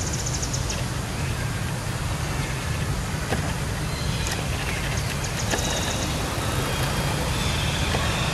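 Steady low outdoor background rumble, with a faint, high, rapid trill of ticks at the start and again about five seconds in.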